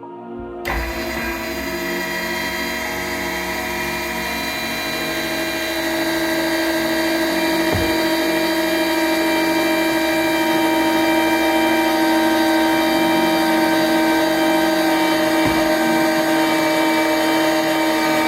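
Electric motor of a breaking-strain test rig running with a steady whine while it pulls braided fishing line under tension, growing slightly louder over the first dozen seconds.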